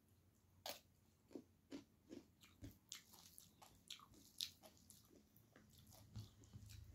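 Faint, close-miked eating sounds from someone eating rice and chicken by hand: biting and chewing, with a dozen or so short crisp clicks spread irregularly.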